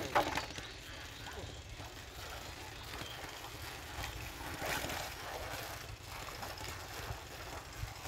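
Shallow muddy water sloshing and splashing as hands grope through the mud, with a sharper splash just after the start as a catfish is dropped into a metal basin of water.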